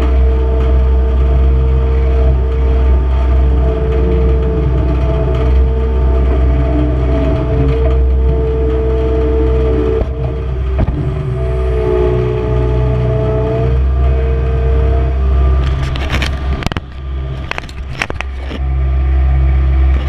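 Skid steer engine running steadily, with a steady whine over its low rumble, heard from inside the open cage cab. Late on, a few sharp knocks and scrapes of a hand handling the camera cut through, and the engine's rumble is briefly muffled.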